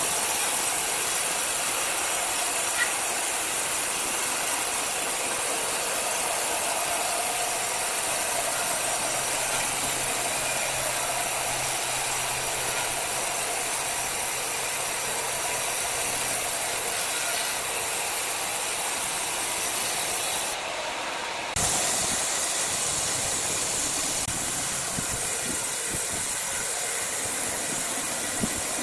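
Large sawmill wood saw running, a steady hissing machine noise, with a brief drop about three-quarters of the way through before it comes back suddenly.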